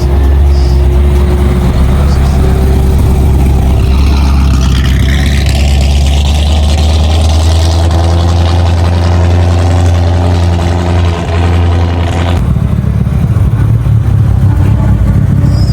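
A car's engine and exhaust running loudly, with a strong steady low rumble; the sound changes abruptly about twelve seconds in.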